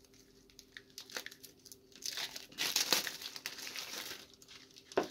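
A deck of oracle cards being handled and fanned out in the hand: a few light clicks, then a rustle of thin card stock sliding over itself for a couple of seconds.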